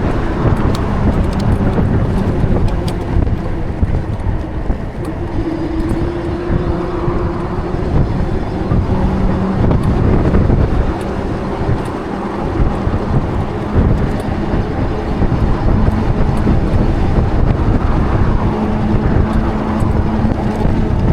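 Wind rumbling on the microphone of a moving e-bike, with the steady noise of road traffic and faint engine hum.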